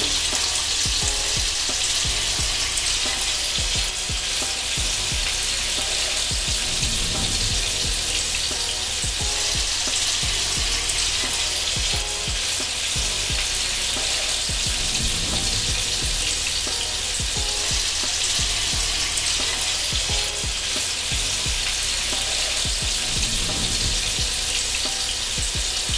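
Flour-coated chicken cubes deep-frying in hot oil in a kadai: a steady sizzle dense with fine crackling.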